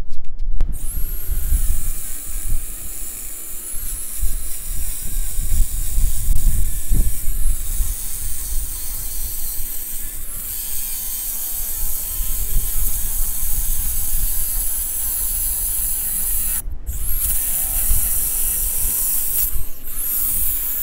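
Angle grinder with a masonry blade cutting a groove into a brick chimney at roof level, the groove that will take the bend of the flashing. It runs as a steady, loud grind with a high whine, starting about a second in and cutting out briefly twice near the end.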